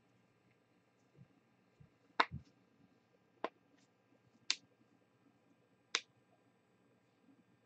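Four sharp, separate clicks, one to one and a half seconds apart, with a few soft low knocks just before and under the first.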